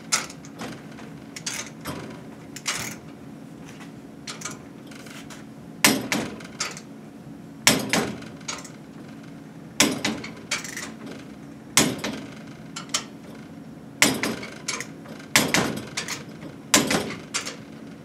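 Wrench on ARP connecting-rod nuts as they are loosened and retorqued: sharp metallic clicks and clacks, a few light ones at first, then clusters about every two seconds from about six seconds in.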